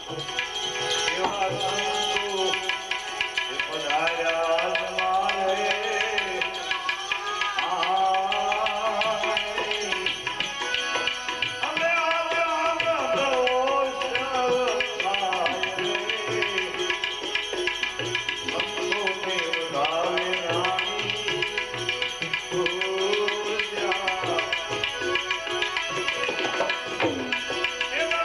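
Devotional bhajan music: tabla playing a steady run of strokes under a melody with gliding, ornamented notes.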